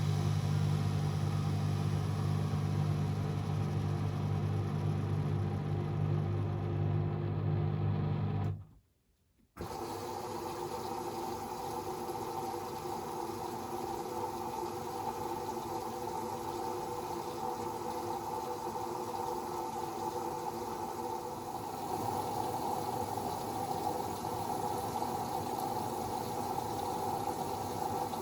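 Beko WMD 46160 washing machine on a 90°C boil wash. A steady low hum for about eight seconds breaks off suddenly. After a brief gap comes a water-like rush with a steady mid-pitched hum, as of water running or being pumped through the machine.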